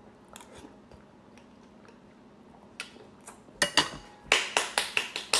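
Close, wet chewing and lip-smacking of someone eating a mouthful of rice and soup. It is quiet at first, then a run of sharp smacking clicks comes in the second half, about two or three a second.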